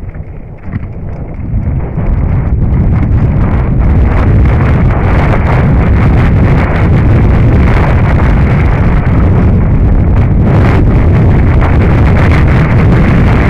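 Wind buffeting a helmet-camera microphone and a RAM AM.TWO downhill mountain bike rattling and knocking over a rocky trail at speed. It builds over the first two seconds as the bike picks up speed, then stays loud and steady with many short knocks.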